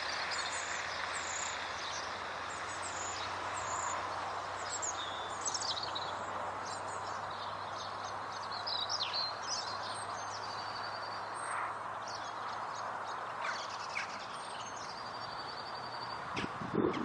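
Small birds chirping and calling outdoors over a steady rushing hiss, with a few sharp knocks near the end.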